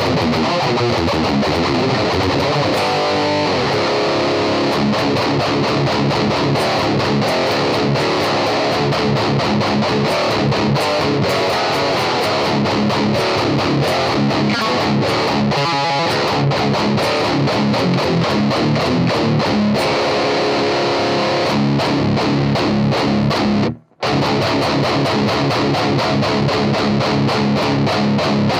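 Heavily distorted ESP LTD M1000H-T electric guitar with active pickups, played through a 5150 amp head recorded direct, with no mic on the cab. It plays fast metal riffs of rapid chugging picking, with a brief full stop about 24 seconds in before the riffing resumes.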